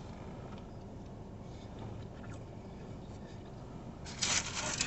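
Quiet car interior with a few faint handling ticks, then about a second of rustling near the end as a person shifts and handles things in the seat.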